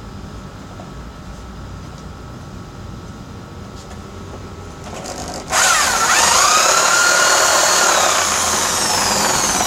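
Homemade drill-driven cylinder drum sander running with a low steady hum, then about halfway through wood is fed against the sanding drum and a loud sanding noise starts, with a whine that dips and rises under the load.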